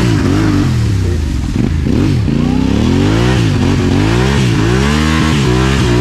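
Trail motorcycle engine revved hard over and over, its pitch rising and falling, as the rider tries to drive the bike out of sticky clay mud it has sunk into.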